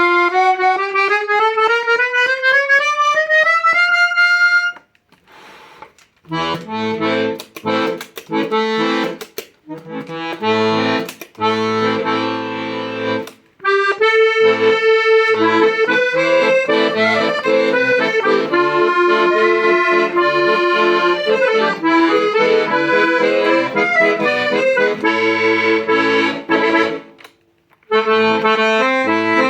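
Klingenthal Contasi accordion playing. It opens with a scale rising about an octave, then short chords over low bass notes, then a melody carried over bass and chords, with a brief pause near the end.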